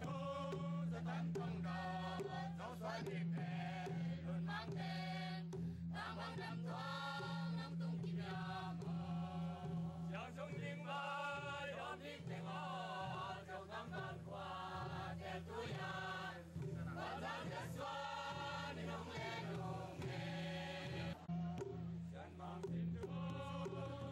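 A group of men and women chanting a traditional Zomi song in unison, accompanied by hand-held drums beaten with sticks and a struck gong keeping a steady beat. A steady low hum runs underneath.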